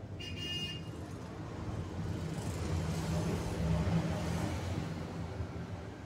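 Low engine rumble of a passing road vehicle, swelling to its loudest about four seconds in and then easing off. A brief high chirp sounds right at the start.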